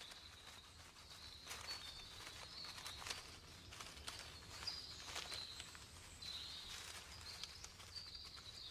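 Faint scratching and soft scattered clicks of insects on birch bark, under a thin, high-pitched whine that wavers slightly in pitch.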